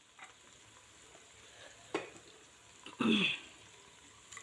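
Sliced onions sizzling as they begin to fry in soybean oil in a stainless-steel pot, a steady hiss. Two short louder sounds come about two and three seconds in, the second the louder, as the onions are stirred.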